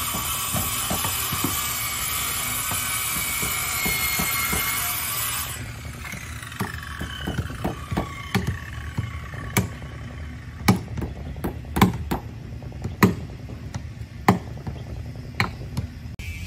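A machine runs with a steady whine, then cuts off about five seconds in and its pitch falls away as it spins down. After that come irregular sharp knocks, about one a second, from hammer blows on the wooden hull and its supports.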